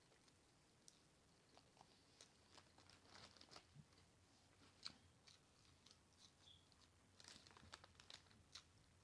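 Faint close-up chewing of a quadruple bacon cheese Whopper, with scattered wet lip smacks and little mouth clicks.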